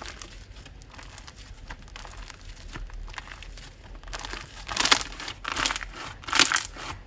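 Slime worked by hand: a run of small sticky clicks, then three louder squelching presses in the second half.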